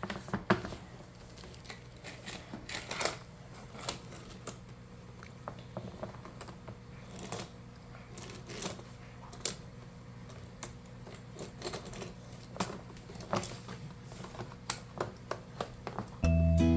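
Toy pieces being handled and fitted together: scattered light clicks and clacks at an irregular pace. Music starts suddenly just before the end.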